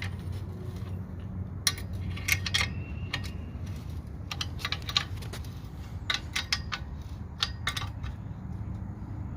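Short metallic clicks and clinks in small clusters as tools and exhaust hardware are handled during work on a BMW E36 exhaust, over a steady low hum.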